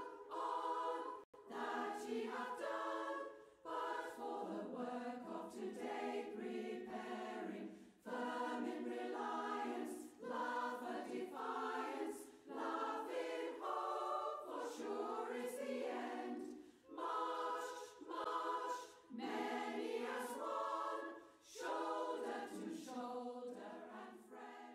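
A choir singing, in phrases with short pauses between them.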